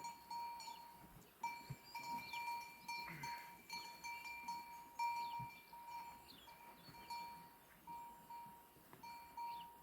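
A livestock bell ringing on and off, with faint bird chirps over it.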